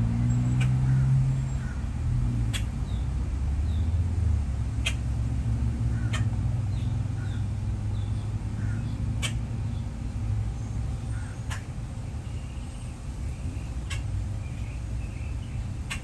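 Steady low vehicle rumble, loudest in the first few seconds, with about seven sharp clicks at uneven intervals and faint short bird chirps.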